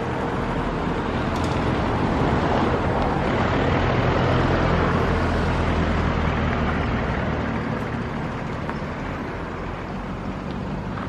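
A motor vehicle passing close by on the road: engine hum and tyre noise swell to a peak about four seconds in, then slowly fade.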